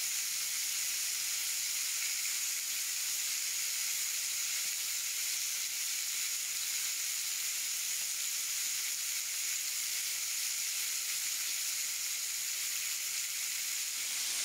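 Pieces of wild boar meat sizzling in a frying pan: a steady, even hiss.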